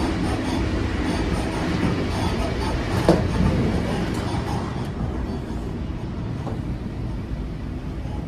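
Inside a Swiss SBB passenger train carriage: steady rumble and running noise of the train, with a single sharp knock about three seconds in.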